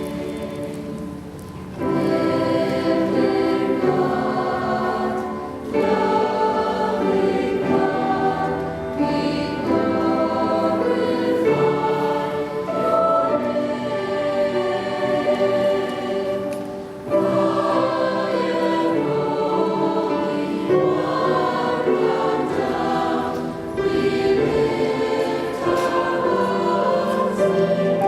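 A choir singing a hymn, sustained phrases in several voices with short breaths between them.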